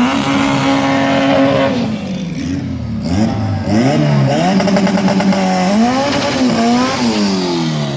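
Drag-racing car engine held at steady high revs for about two seconds, then revving up and down several times before the revs fall away near the end.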